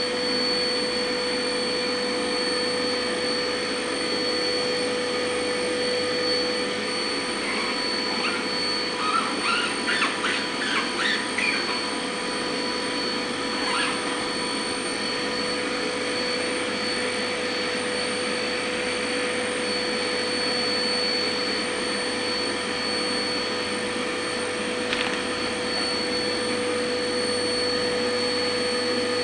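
Homemade workshop vacuum cleaner running steadily with a constant whine. About a third of the way in there are a few seconds of rattling, and a couple of single clicks come later.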